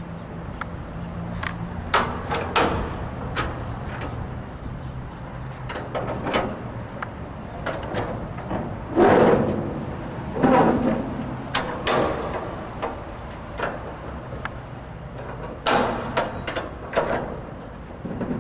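Shipping container door latch handles and locking bars being worked by hand: repeated metal clicks, knocks and clanks, with several louder clanks spaced through it, over a steady low hum.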